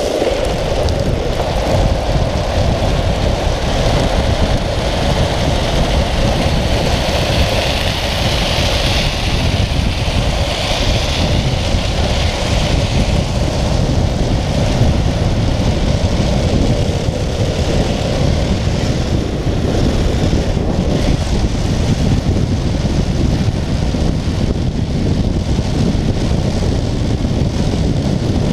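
Steady rush of wind over an action camera's microphone, mixed with the rumble of speed-trike wheels rolling on asphalt at downhill speed.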